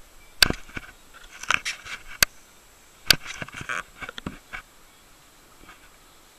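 Handling noise on a hand-held camera: irregular sharp clicks and knocks, with loud single ones about half a second, two seconds and three seconds in and clusters of smaller clicks and rubbing between them, stopping about two seconds before the end.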